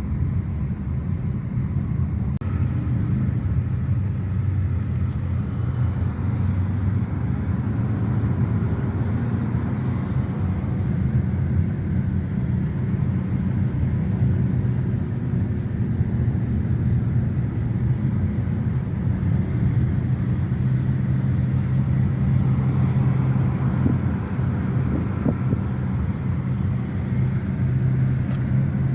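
2023 Nissan Qashqai 1.3 petrol on the move: a steady low rumble of engine and road noise, with an even engine hum holding at a constant pitch.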